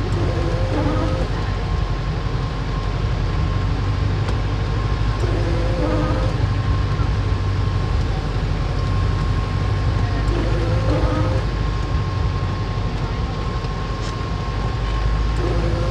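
A vehicle engine running steadily, a constant low rumble with a faint high whine held over it.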